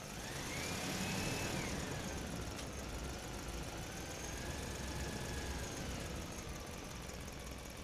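Motor-vehicle engine running, revving up in the first second, easing back after about two seconds, then wavering at a lower pitch over a steady low rumble.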